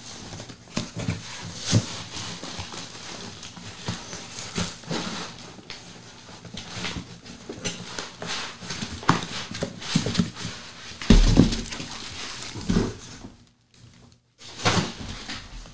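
Cardboard box and foam packing being handled and pulled apart: irregular scraping, rubbing and knocks, with a heavy thump about eleven seconds in.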